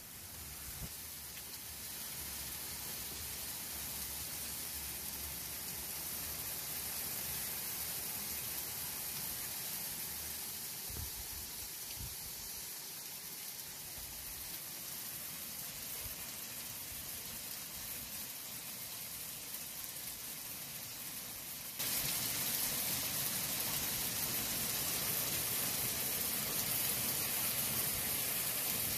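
Hail falling, an even hiss that jumps suddenly louder about three-quarters of the way through.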